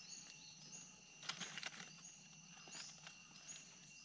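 Faint forest ambience: a steady high insect buzz, with short high calls repeating about every half second. A few brief rustling crackles come around a second and a half in.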